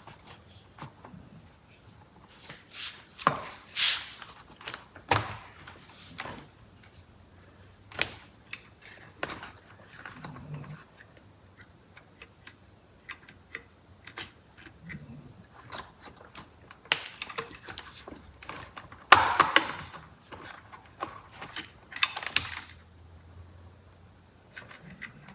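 Scattered clicks, knocks and light rattles of steering-wheel parts and wiring connectors being handled and snapped into place, with several louder clacks among them.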